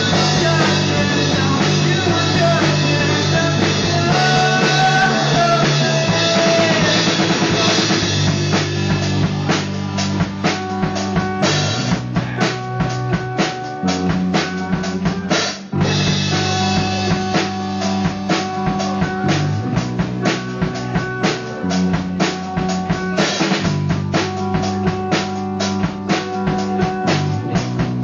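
Live rock band playing: electric guitars holding sustained chords over a drum kit, with a melody line gliding above them early on. From about a third of the way in, steady, regular drum hits come to the fore.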